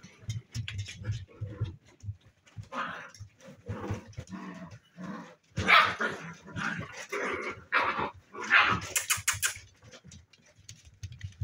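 Spaniel puppies yapping and barking in short bursts as they play together, loudest about six seconds in, with a quick run of sharp clicks near nine seconds in.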